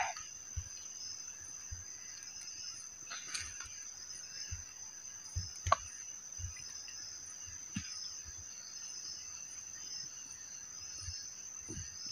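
Crickets chirring in a steady, high-pitched drone, with a faint high tick repeating under a second apart. Scattered faint clicks and low knocks, one sharper click about six seconds in.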